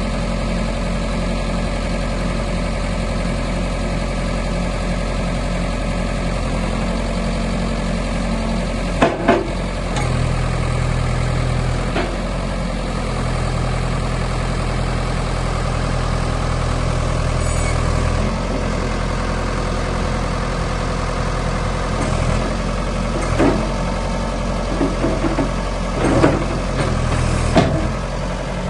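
Ford New Holland 655C backhoe's diesel engine running steadily, its low note changing for a few seconds at a time. Several short knocks come partway through and a cluster near the end.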